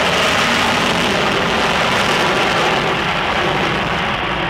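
McDonnell Douglas F-15D Eagle's twin Pratt & Whitney F100 turbofans running at high power on the runway for takeoff, a loud, steady jet noise, with the afterburners lit near the end.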